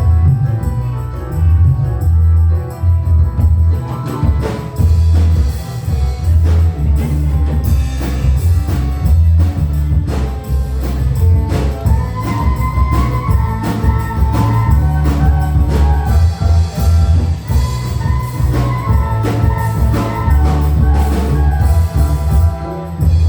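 Dangdut band (orkes Melayu) playing live, with a heavy, pulsing bass and drum beat under keyboard; a higher melody line comes in about twelve seconds in.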